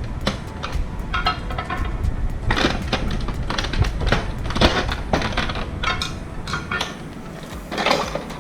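Irregular clicks, knocks and scraping of hard plastic as a flathead screwdriver pries at the printer's plastic housing and its catches. The loudest cluster of clicks comes near the end.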